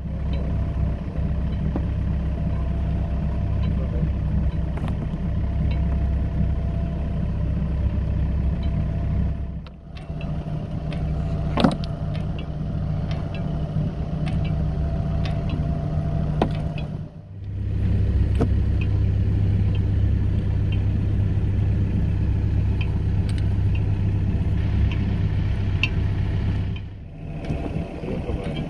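A small fishing boat's engine running steadily with a low hum, with occasional sharp clicks and knocks on board. The hum breaks off briefly three times.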